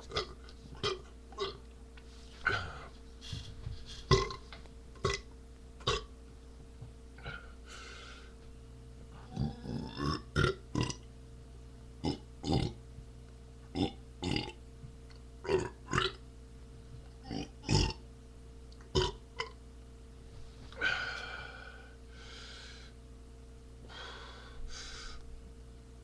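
A man burping again and again: a long string of short belches, with a few longer, breathier ones near the end.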